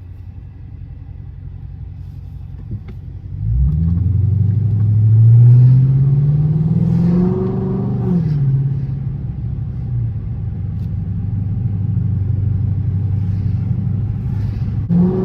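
Car engine heard from inside the cabin under a hard pull. The engine rumbles quietly at first, then about three and a half seconds in it climbs steadily in pitch for about four seconds. It drops sharply as it shifts up and then holds a steady drone, and right at the end another pull begins.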